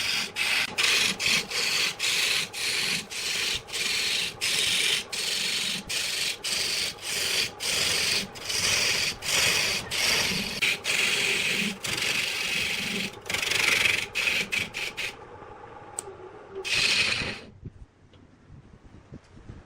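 Rhythmic back-and-forth abrasive strokes on wood, like hand sanding or rasping, at about two strokes a second. The strokes stop about fifteen seconds in, and one last longer stroke follows a second later.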